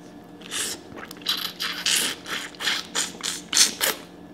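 A person eating a boiled shrimp dripping with seafood sauce: a run of short, wet mouth sounds from biting and sucking on the shrimp, about three a second, starting about half a second in.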